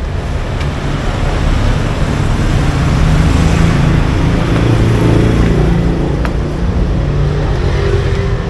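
Street traffic with a motor engine running close by, a loud steady rumble with a wavering low engine note.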